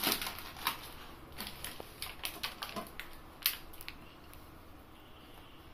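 Plastic biscuit packet crinkling as it is handled: a run of sharp, irregular crackles that stops about four seconds in.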